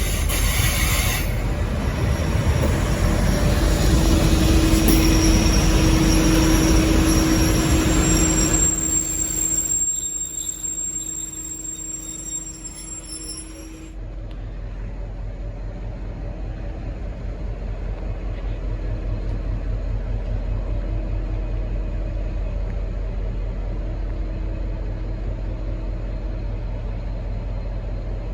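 V/Line N-class diesel locomotive and its train running at the station, loud with a steady hum for the first nine seconds or so, then easing to a low steady rumble.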